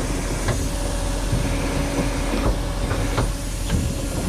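Heavy truck engine running steadily at idle, with a few light knocks.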